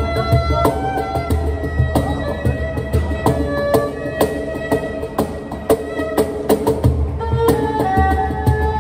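Erhu playing an improvised melody of held notes over a cajon played with the hands: repeated deep bass thumps and sharp slaps on the box.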